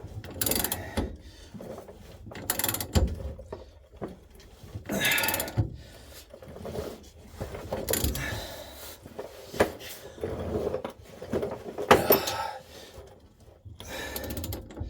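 Socket ratchet clicking in repeated strokes, roughly every one to two seconds, as a 21 mm upper shock mounting bolt is backed out on a 2014 Silverado 1500. The original, corroded bolt is turning out under hand power without snapping.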